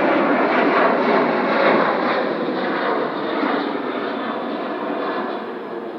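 Jet aircraft engine noise, a loud steady rush that fades gradually as the aircraft moves away.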